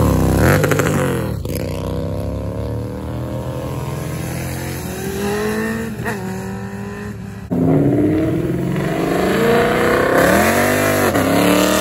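A cruiser motorcycle passes close by, its engine note dropping as it goes, then accelerates away through the gears, fainter. About seven and a half seconds in, a Ford Mustang's engine comes in suddenly loud, revving as it pulls out.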